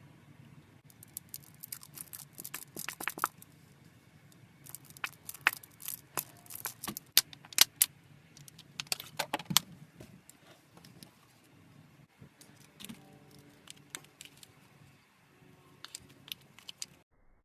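Slime being squeezed and worked by hand, giving quick clusters of sharp crackling clicks and pops that thin out in the second half.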